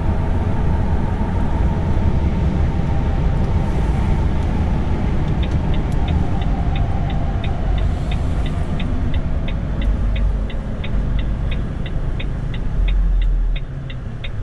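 Cab of a Mercedes-Benz Actros truck on the move: steady engine and road rumble. From about five seconds in, the turn-signal indicator ticks evenly, about three times a second, as the truck signals its turn into an entrance.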